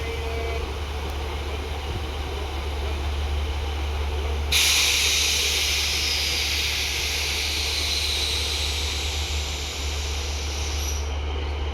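Class 150 diesel multiple unit idling with a steady low engine drone. About four and a half seconds in, a loud air hiss starts suddenly, eases slowly, and cuts off near the end: air escaping through a leak in the unit's compressor air system.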